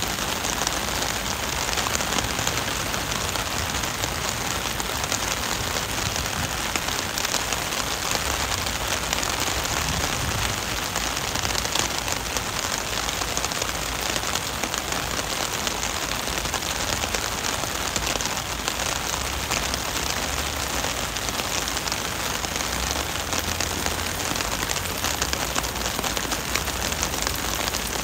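Heavy rain pouring steadily onto pavement and a flooded road, a dense, even hiss of downpour that doesn't let up.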